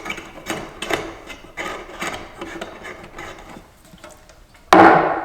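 Workbench handling noises: light rubbing, scraping and small clicks of parts and materials being moved about on a wooden surface, with a louder knock near the end.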